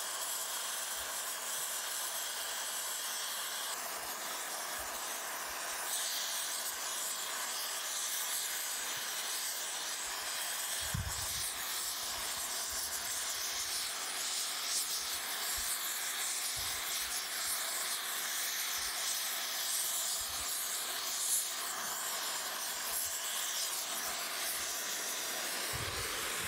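Rosebud heating torch flame hissing steadily as it heats and brazes a cast-iron steam chest casting.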